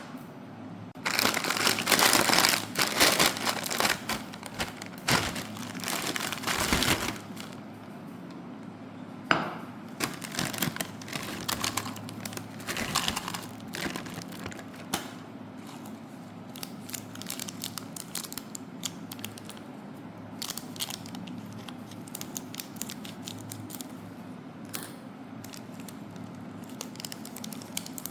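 Plastic snack packet crinkling and tearing open, loud for the first several seconds. After that come quieter scattered crackles and snaps as the snacks are handled.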